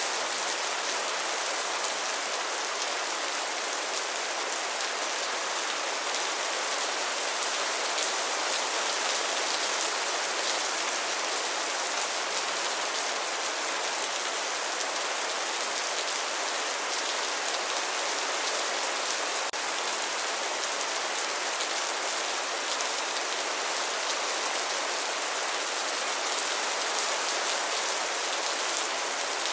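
Steady rain falling and pattering on a surface, an even hiss with fine drop patter.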